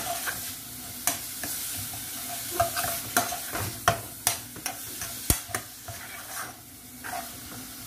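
Metal spoon stirring ground cabbage sautéing in a small pan, with a steady sizzle and irregular clicks and scrapes of the spoon against the pan.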